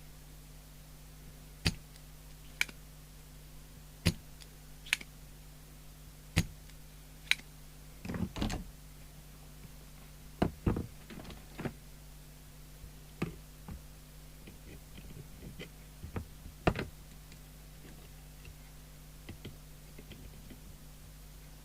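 Irregular sharp clicks and light knocks of tools and parts being handled at a workbench while a capacitor is removed from a CB radio's circuit board, over a faint steady low hum.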